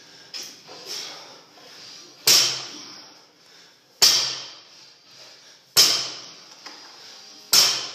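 Barbell loaded to 225 lb landing on rubber gym flooring between deadlift reps: four sharp impacts of the plates, about one every second and three quarters, each followed by a brief rattle that dies away.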